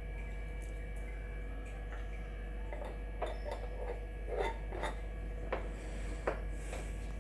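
A few light taps and clicks of kitchen utensils spread over several seconds, over a steady low hum.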